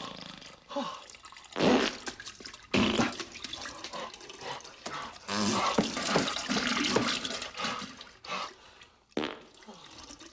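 Comedy film sound effects of laxative-induced diarrhea: wet flatulence and splattering into a toilet bowl, in irregular bursts of different lengths.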